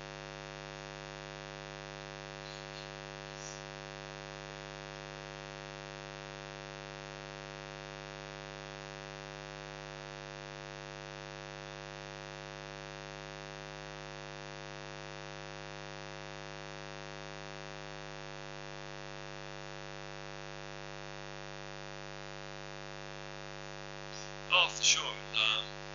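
Steady electrical mains hum: a constant buzz with many evenly spaced overtones that does not change.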